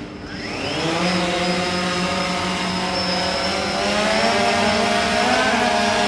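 DJI Phantom 3 quadcopter's motors spinning up, rising in pitch over about the first second, then holding a steady buzzing whine as the drone lifts off and hovers, wavering slightly near the end.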